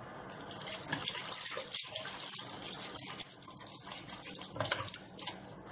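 Water poured from a plastic jug over grated potato in a plastic colander, splashing and draining through the holes as the shreds are rinsed a second time to wash off their starch.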